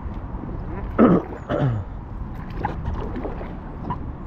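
Wind noise on the microphone and water around an inflatable kayak on the river. About a second in come two short, loud cries, each falling in pitch.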